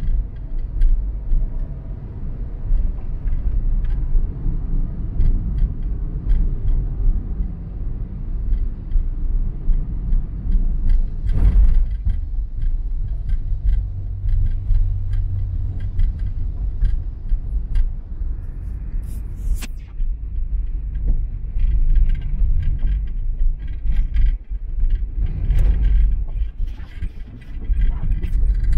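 Car driving on the road: a steady low rumble of road and engine noise, with scattered small knocks and a brief thump about eleven seconds in.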